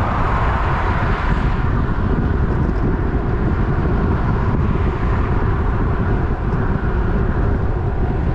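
Steady rush of wind buffeting the microphone of a moving bicycle's camera, with road noise, loudest in the low end and not letting up.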